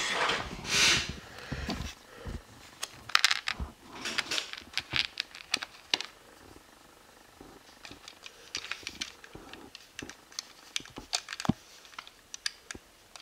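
Plastic LEGO pieces being handled and pressed together: scattered short light clicks and rattles, with a brief rustle near the start.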